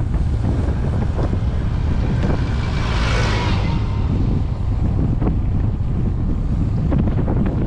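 Wind buffeting the microphone over a steady rumble of tyres rolling on loose gravel, with scattered small crunches and knocks. About three seconds in, a brief louder hiss rises and fades.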